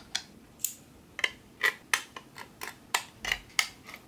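Short, sharp metal clicks and taps, about three a second at uneven spacing, from a precision screwdriver set being handled and used on the small screws of a 2.5-inch SSD's casing.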